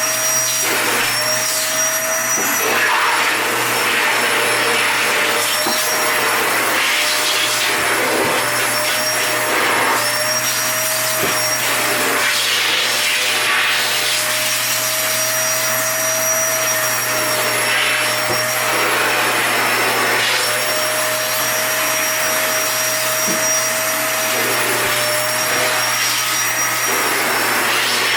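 Toshiba VC-S960 vacuum cleaner running steadily: a motor whine with a thin high whistle over a rush of air. The airflow hiss swells and dips briefly every second or so.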